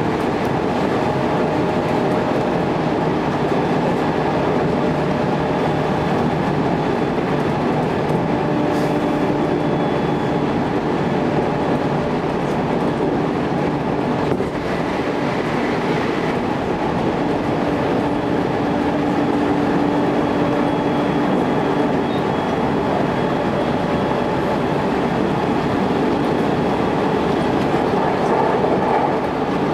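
Electric local train running steadily along the line, heard from on board: a continuous rolling rumble of wheels on rail with faint steady motor tones that come and go.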